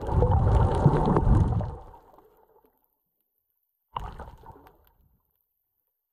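Water sloshing and gurgling, heard muffled through an underwater camera, in two bursts that each die away: a longer one at the start and a shorter one about four seconds in.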